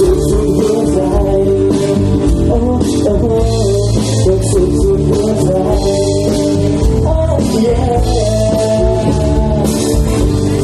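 A rock-style song: a voice singing over guitar and drums.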